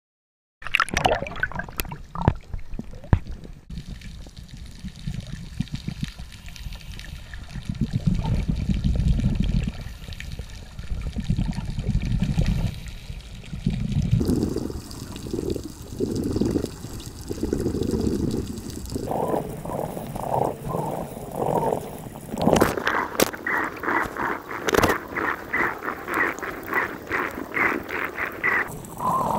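Scuba diving heard underwater through a GoPro's waterproof housing: water sloshing at the surface in the first seconds, then regulator exhaust bubbles burbling in low rumbling surges. In the last several seconds the bubbles come in a quick rhythmic run of about two bursts a second.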